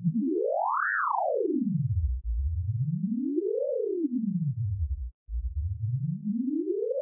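Electronic intro sound effect: a single synthesized tone sweeping up and down in pitch. It rises high and falls within the first two seconds, then makes two lower rises and falls, cutting out briefly about five seconds in.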